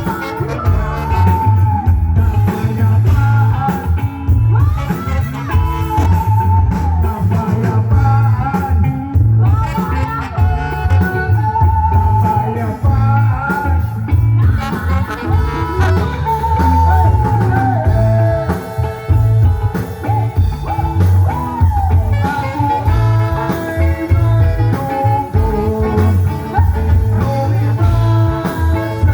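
Rock music with a steady beat, guitar and a singing voice.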